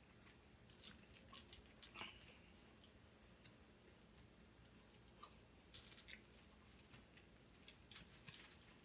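Faint chewing, with scattered small clicks from the mouth.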